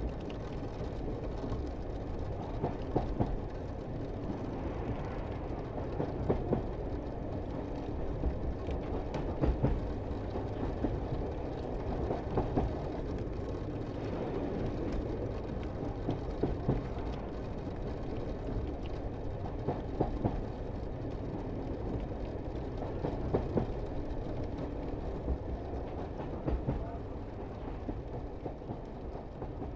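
Pikes Peak cog railway train running on the track, a steady low rumble with occasional short knocks every few seconds.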